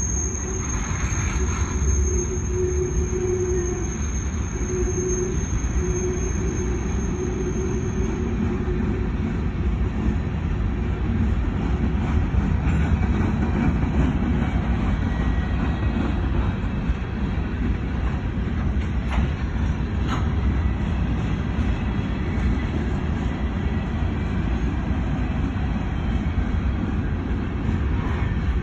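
Coal hopper cars of a freight train rolling past, with a steady rumble of steel wheels on the rails. A thin, high-pitched wheel squeal runs over the rumble and stops about eight seconds in.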